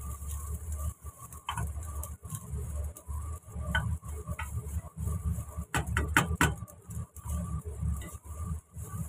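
Spatula stirring and tossing fried rice in a nonstick frying pan: scattered scrapes and taps against the pan, with a quick run of several knocks about six seconds in, over a low steady rumble.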